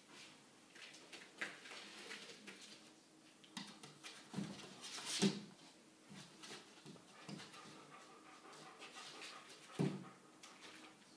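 Five-week-old puppies playing: soft whimpers and small puppy noises over scuffling on blankets, with louder bursts about five seconds in and again near ten seconds.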